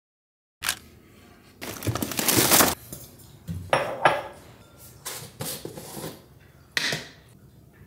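Dishes and cutlery clattering: a noisy rush lasting about a second near two seconds in, then a handful of separate clinks and knocks.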